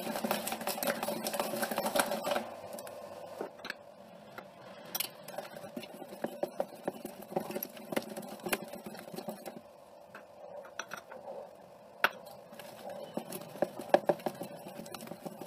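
A hand utensil beating cake batter in a bowl: irregular clicks and scrapes of the utensil against the bowl as flour is mixed in. Brisk for the first couple of seconds, then sparser.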